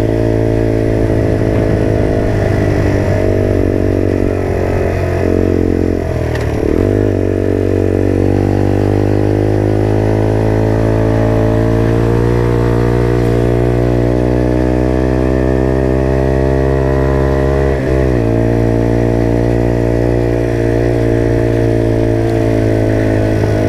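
Motrac M5 mini motorcycle's little 50cc engine running steadily under way. Its pitch dips briefly about six seconds in and again near eighteen seconds.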